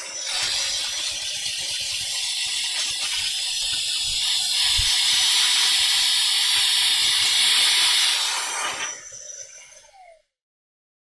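Small handheld vacuum cleaner running in blow mode with a brush attachment, blowing air over a graphics card: a loud, steady rushing hiss that swells a little past the middle, then winds down and stops near the end.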